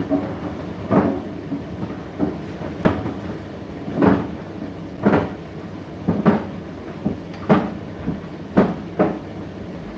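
Indesit IDC8T3 condenser tumble dryer running mid-cycle: a steady motor and drum hum, with the load thudding in the turning drum roughly once a second.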